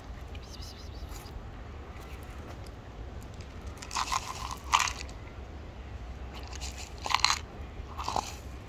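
Dry cat kibble crunching and rattling in a few short bursts, about four, seven and eight seconds in, as stray cats eat and pellets are handled from a plastic cup.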